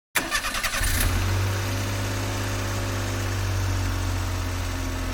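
Toyota Hiace van's engine starting: about a second of rapid cranking pulses, then it catches and settles into a steady idle.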